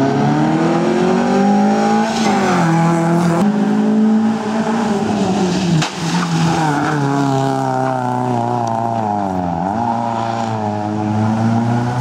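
Small under-1400 cc rally hatchback's engine revving hard under full throttle, its pitch climbing and then dropping sharply at each gear change several times over.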